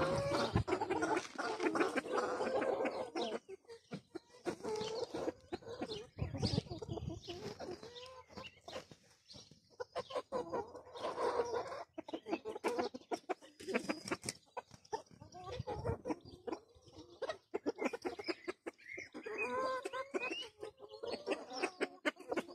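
Silkie chickens clucking softly, in short pitched calls that come in bouts with brief pauses between.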